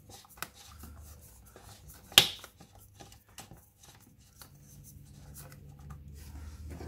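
Oil filter cartridge cover being screwed onto its housing by hand: faint scattered clicks and rubbing, with one sharp click about two seconds in.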